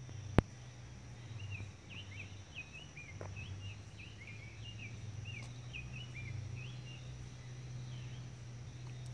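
Outdoor ambience: a songbird chirping a quick run of short notes over a steady low hum, with one sharp click about half a second in.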